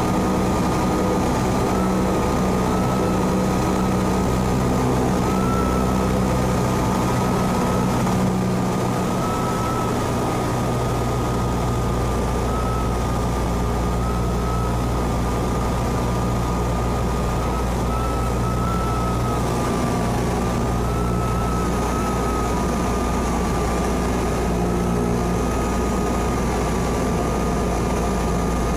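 Cessna 172's piston engine and propeller droning steadily in flight, heard from inside the cabin, with a thin steady whine riding above it. The low engine note shifts slightly about ten seconds in.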